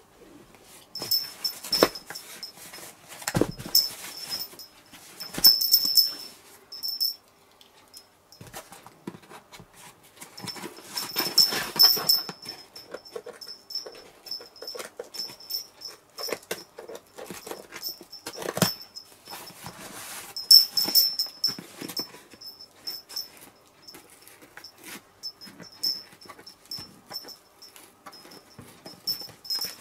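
Scissors scraping and snipping at packing tape on a cardboard box while the box is handled: irregular scratches and clicks that come in uneven bursts with short pauses.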